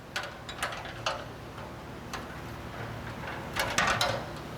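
Light metal clicks and taps as an A/C hard-line and bracket assembly is handled and set into place, a few scattered knocks then a louder rattling cluster near the end.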